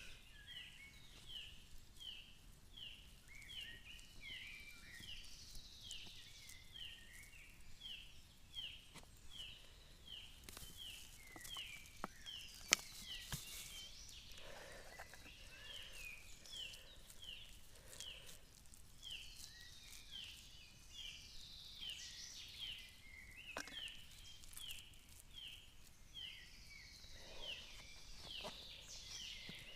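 A bird calling over and over in woodland, a short falling note repeated about every half second, with scattered soft knocks and handling noises and one sharper knock a little before halfway.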